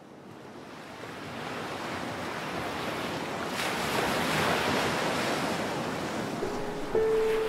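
Ocean surf washing onto a sandy beach. It fades in from silence and builds to a steady rush. A few sustained music notes come in near the end.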